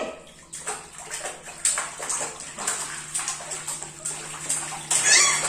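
A baby splashing in a plastic baby bathtub, slapping the water in irregular splashes, with the loudest burst near the end.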